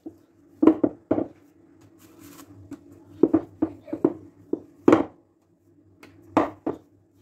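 Wooden rolling pin rolling small pieces of dough on a wooden board, with about a dozen irregular knocks of the pin against the board, some in quick pairs.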